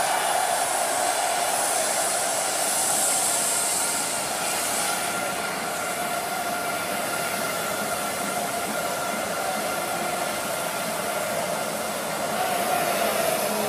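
Large stadium crowd cheering in a steady, unbroken roar.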